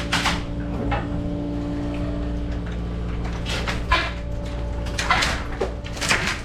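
Demolition machine's diesel engine running steadily while debris crashes and crunches in several sharp bursts, the loudest about four and five seconds in.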